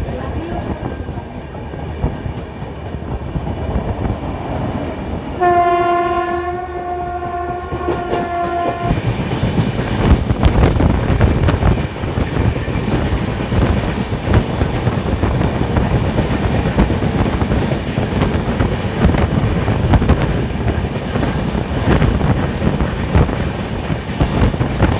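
Passenger train running on the rails, wheels clattering. About five seconds in, a single train horn blast is held at one pitch for about three seconds. From about nine seconds in the running noise grows louder, with a dense rattle of clicks.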